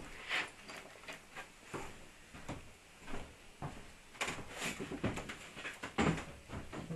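Irregular rustling, clicks and knocks from handling a length of hook-up cable and tools at a workbench, with a louder knock about six seconds in.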